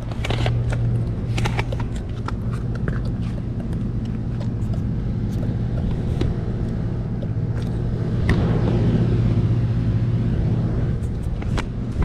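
Outdoor air-conditioner condenser unit running with a steady low hum, with scattered knocks and rubs from handling the phone; the hum grows a little louder about eight seconds in.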